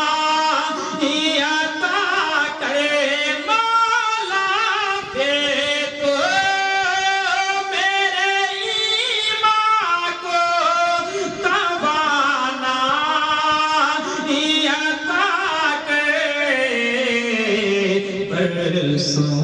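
A man singing a naat: long, ornamented held notes that slide between pitches, with a falling phrase near the end.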